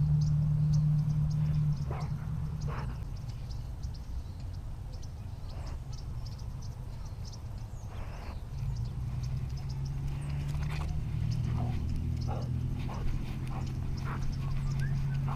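A dog on the move, heard through a camera strapped to its harness: scattered clicks and rustles over a low steady hum.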